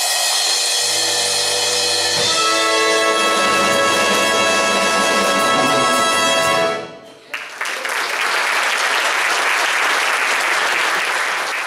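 A concert orchestra with brass and strings sustains a final chord, ending sharply about seven seconds in. After a brief gap the audience applauds.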